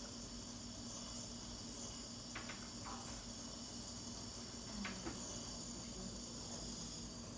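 Steady high-pitched hiss with a faint low hum: quiet room background, with a few faint brief sounds about two and a half, three and five seconds in.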